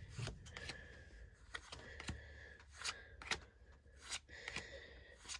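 Pokémon trading cards being flipped and slid one by one through a stack of pack cards: about ten soft, uneven flicks and snaps of card stock.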